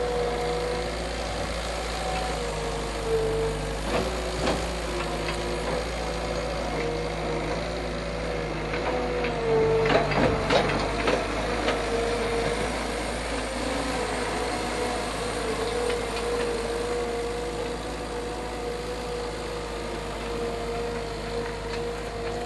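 Skid steer engine running steadily, with a few sharp metal clanks about three to four seconds in and a short cluster of clanks about ten seconds in.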